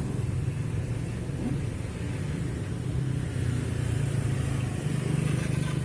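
A motor vehicle engine running with a steady low hum, growing a little louder in the second half.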